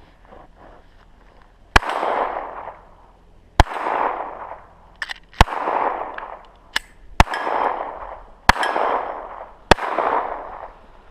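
Six gunshots fired at a steady pace, one every second and a half or so, each followed by about a second of rolling echo. Two fainter sharp cracks fall between the later shots.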